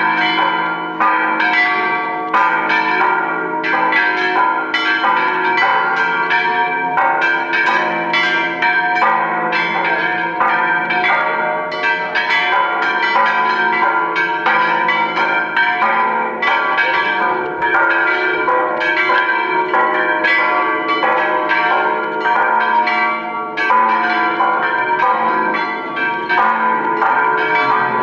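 Church bells ringing a continuous peal, with overlapping strokes about once a second and long ringing tones between them.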